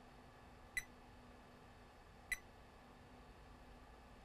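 Multimeter continuity beeper giving two short chirps, about a second and a half apart, as the probe touches points on the motherboard. The chirps are brief rather than a steady tone: no short to ground on the points tested.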